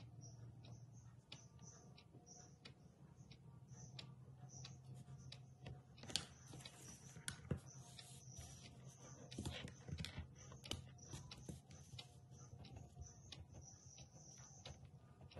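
Faint rustling of paper as printed study sheets are handled and turned over, loudest midway, over a quiet background of small clicks and ticks.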